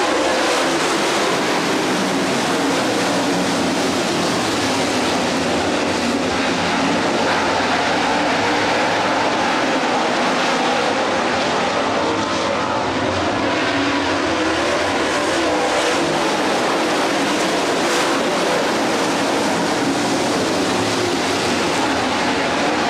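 A pack of dirt late model race cars running at speed, their V8 engines blending into one steady, loud sound with no breaks.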